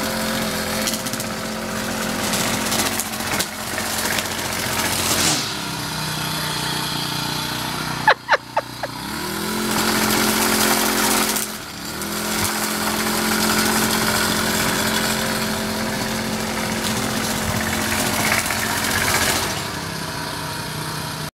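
Gas string trimmer (weed eater) engine running at speed. It drops back toward idle twice and revs back up each time. About eight seconds in there is a quick run of sharp, loud knocks.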